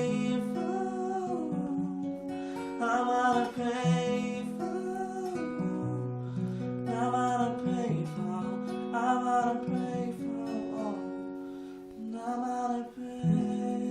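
Acoustic guitar strummed, with a voice singing several long held phrases without clear words over it.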